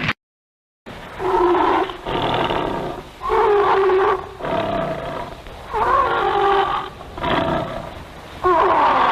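Roar sound effect of the crocodile kaiju Vegaron: after a brief dead silence, a string of about seven harsh, pitched monster roars, each about a second long, with short gaps between them.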